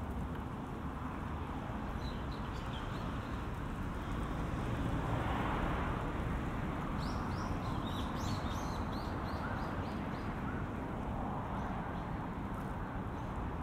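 Street ambience with a steady low traffic rumble and a vehicle passing, loudest about five seconds in. A small bird chirps in quick series of short high notes in the middle.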